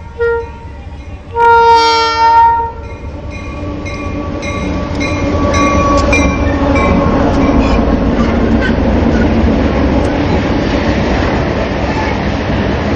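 Diesel freight locomotive's horn sounds a short toot and then a longer chord blast about a second and a half in. Then the MRS diesel locomotives and freight cars pass close by, the engine and wheel noise building to a steady rumble with wheels clicking over rail joints.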